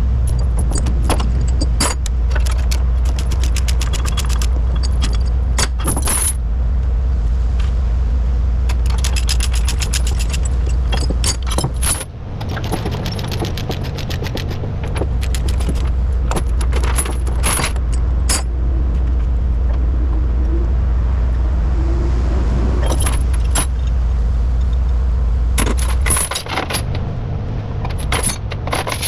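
Steel tie-down chains rattling and clinking again and again as they are unhooked and dragged off a lowboy trailer, over the steady low hum of an idling engine.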